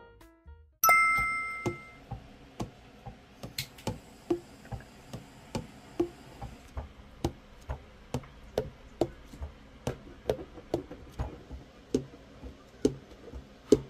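Keys and pads of a Selmer Super Action 80 Series III tenor saxophone being pressed and released by hand, giving sharp irregular clicks about two or three times a second as the pads close on the tone holes during a leak test; the keys close snugly. A single loud bell-like ding sounds about a second in.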